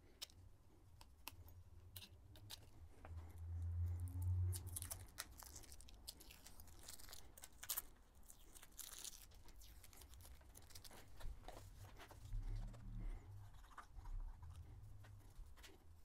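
Faint handling sounds of work on a road bike's handlebars: scattered light clicks and ticks, rustling and rubbing in the middle, and a few low bumps.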